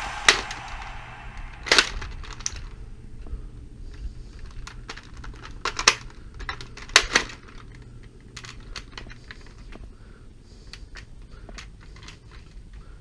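Plastic clacks and clicks of a Jet Blaster Ceda S dart blaster being handled and reloaded by hand: a handful of sharp clacks in the first seven or so seconds, the loudest about six and seven seconds in, then only lighter ticks.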